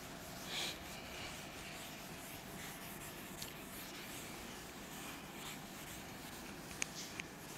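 Cloth wiping a chalkboard: a faint, steady scrubbing as the board is erased, with two small clicks near the end.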